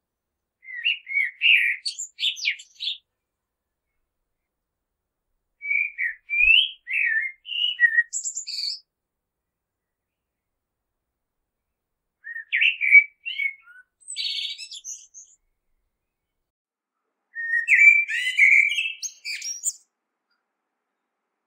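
Male common blackbird singing: four separate song phrases a few seconds apart. Each phrase is a fluting warble that ends in higher, thinner twittering notes.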